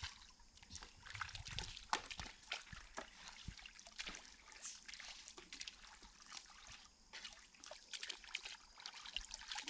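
Water trickling and splashing in many small, irregular splashes and drips.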